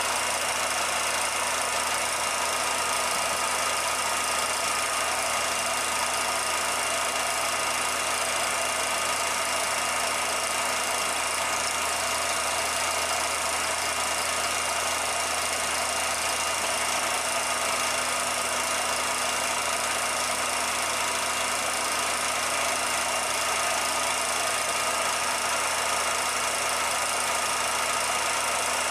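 Steady mechanical running noise: a constant hiss with a few fixed hum tones, unchanging throughout, with no bangs or other events.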